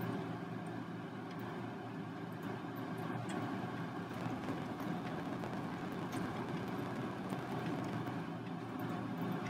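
Steady low background hum, even throughout, with a few faint ticks.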